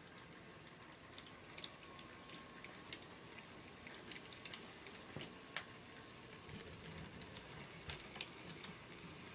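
Model train running on the layout: faint, irregular light clicks of its wheels over the rail joints and points, a few a second.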